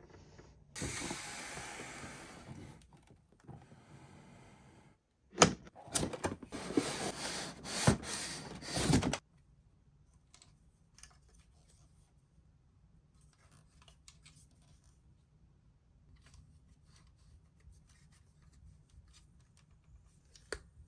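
Toy packaging being handled and opened: a stretch of rustling, then a burst of sharp clicks and crinkling about five seconds in. After that come faint scattered small clicks that are close to silence.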